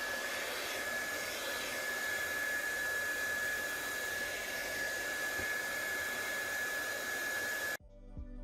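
Hair dryer blowing hot air steadily, a constant rush with a steady high whine, used to soften the adhesive under a phone's back cover; it cuts off suddenly near the end.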